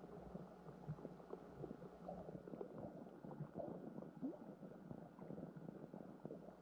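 Faint, muffled lake water heard by a submerged camera: a low rumble with many small crackles and ticks throughout.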